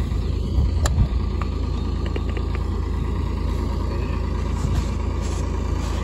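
An engine running steadily with a low rumble, and a few faint clicks in the first couple of seconds.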